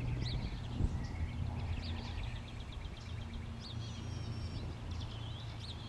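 Several small birds chirping and singing, with quick curved calls and a rapid trill of repeated notes about two seconds in, over a low steady hum.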